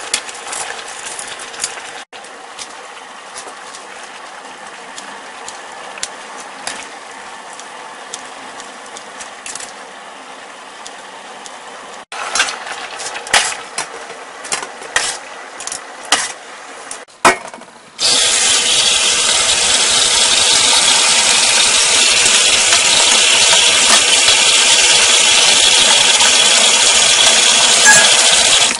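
Metal tongs clinking against a stainless-steel pot as sweet potato glass noodles are stirred in hot water, over a steady low hiss; then sharper clanks and splashes as the noodles are tipped into a steel colander. About two-thirds of the way through, a kitchen tap starts running hard into the colander in a stainless-steel sink, a loud steady rush of water that is the loudest sound.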